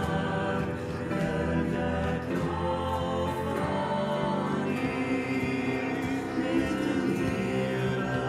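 Afrikaans worship song sung by a man and a woman together, over cello and keyboard accompaniment.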